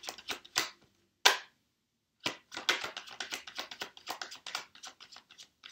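A deck of Rider-Waite tarot cards being shuffled by hand: a quick run of soft card flicks and riffles, one sharper snap of the cards about a second in, a short pause, then a longer run of rapid flicks.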